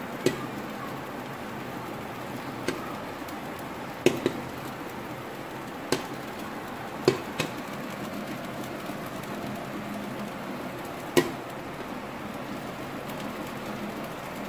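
Popcorn kernels popping in a covered pan on high flame: about eight sharp pops, scattered a second or more apart, over a steady hiss. The pops have thinned out because the popcorn is nearly done.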